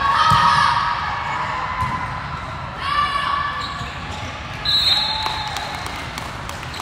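Echoing volleyball gym between points: players and spectators calling out, with a ball bouncing on the court floor.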